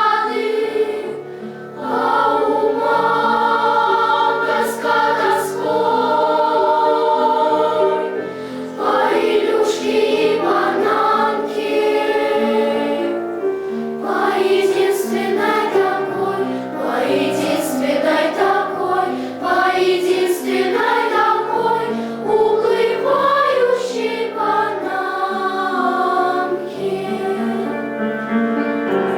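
Children's choir singing in unison and parts with piano accompaniment.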